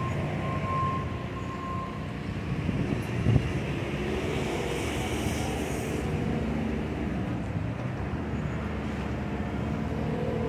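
Steady vehicle engine rumble with a backup alarm beeping in regular pulses for the first couple of seconds. There is a single knock about three seconds in and a brief hiss around five seconds.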